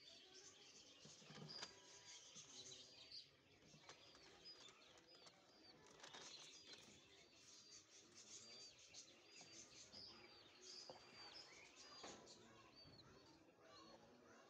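Faint birds chirping: many short, repeated high chirps over a low background hiss.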